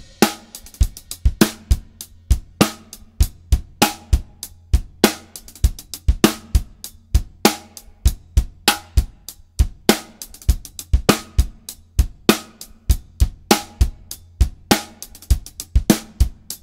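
Drum kit playing a rock groove over and over: hi-hat eighth notes, bass drum and snare backbeat, with a three-stroke ruff (ra de 3) played on the hi-hat.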